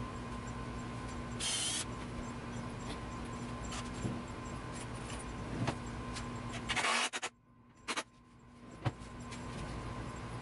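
Steady workshop hum with scattered wooden knocks, clicks and short scraping rustles as plywood drawers and drawer faces are handled. A little after seven seconds the background hum drops away almost completely, then comes back gradually over the next couple of seconds.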